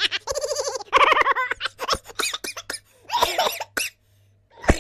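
Silly cartoon laughing sound effect: a high, rapid run of bouncing 'ha-ha' pulses that trails off into breathy giggles and stops about four seconds in, followed by a short knock.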